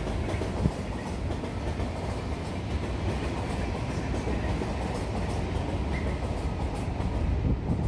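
An NS VIRM double-deck electric train running past on the tracks: a steady rumble of wheels on rail with faint clicking. There is a single sharp clack about a second in.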